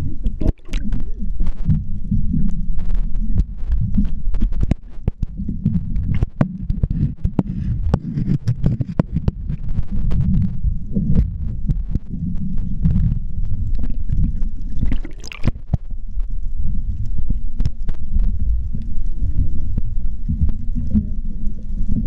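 Muffled underwater rumble picked up by a GoPro in its waterproof housing, a dull throbbing low noise with many scattered sharp clicks.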